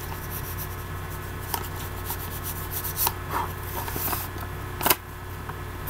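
Hands rubbing and handling a folded paper dollar bill: soft rustling with a few sharp crackles, the strongest about five seconds in, over a steady low hum.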